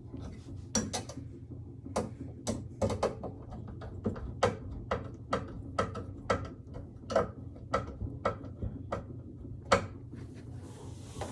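A run of sharp metallic clicks and clacks, about two a second and slightly irregular, from hand work on TV wall-mount hardware, over a low steady hum.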